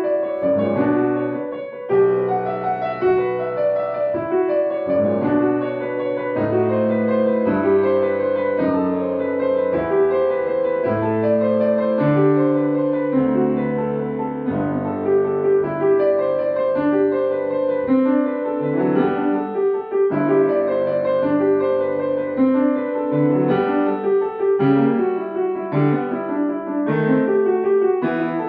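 Solo grand piano playing a classical piece, a continuous stream of notes without pauses.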